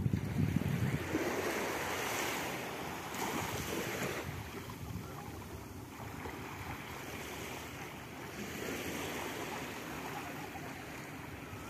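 Sea waves breaking and washing up a sandy beach, surging twice, with wind rumbling on the microphone near the start.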